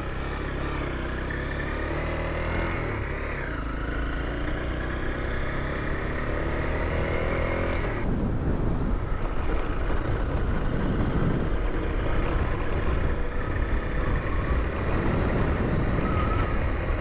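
Honda CRF250L's single-cylinder four-stroke engine running steadily while riding on a dirt track. About eight seconds in the sound changes abruptly to a louder, rougher mix of engine, wind and road noise.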